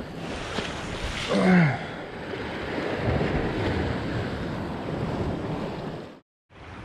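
Sea surf washing against a rocky shore, with wind buffeting the microphone. About one and a half seconds in comes a short sound with a pitch that falls away, and near the end the sound cuts out abruptly.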